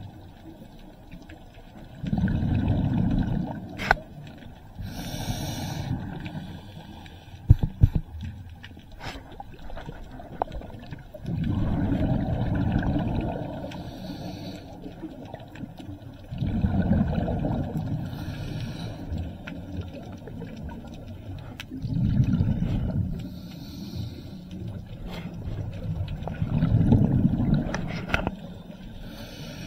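Scuba diver breathing through a regulator underwater: a burble of exhaled bubbles about every five seconds, each followed by the short hiss of an inhale. A few sharp clicks sound near the start.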